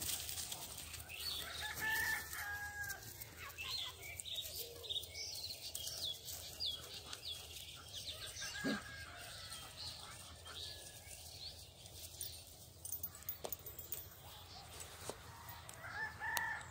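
A rooster crowing several times, each crow a held call with a step in pitch. Small birds chirp briefly in between.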